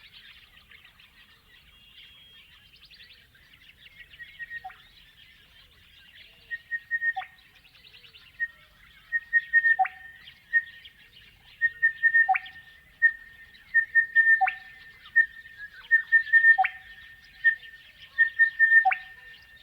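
Crested bellbird singing: repeated phrases of short ringing notes, each ending in a deeper bell-like note, about one phrase every two seconds. The calling starts soft and grows louder and denser from about six seconds in, over faint chirping from other birds.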